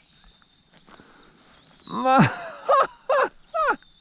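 Crickets keep up a steady high trill. About halfway through, a man gives a long, loud groan that falls in pitch, then three shorter falling vocal sounds in quick succession.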